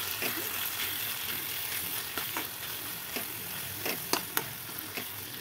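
Onion and tomato sabji sizzling in a kadhai as a spatula stirs it, with scattered scrapes and clicks of the spatula against the pan.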